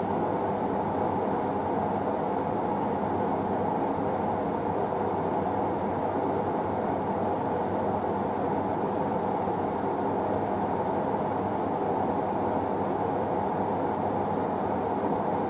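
Passenger train rolling past on a far track of a large station: a steady, even rumble with a faint hum.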